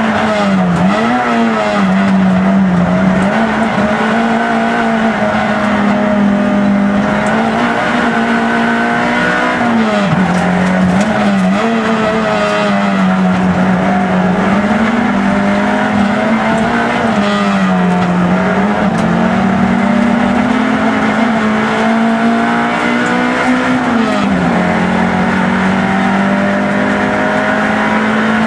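Peugeot 106 race car's engine heard from inside the cabin, running hard at high revs, its pitch dropping and climbing again several times as the car lifts and accelerates through the course.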